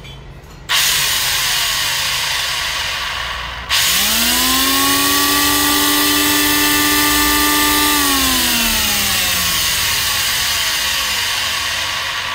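Used 430 W, 100 V electric hand planer run without a load. It switches on about a second in, cuts out briefly a few seconds later and restarts, its whine rising and holding a steady pitch. It is then switched off and winds down with a falling whine. It runs with a loud rushing rattle (kêu rào rào).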